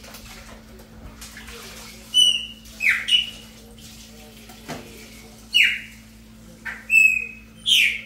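Chopi blackbird (pássaro-preto) singing: a string of about five loud, separate whistled notes, some held briefly at one pitch and some sweeping sharply downward, with a steady low hum underneath.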